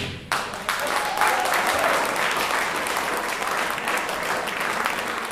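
Audience applauding, starting just after a big band's final chord cuts off, with many hands clapping and slowly getting quieter.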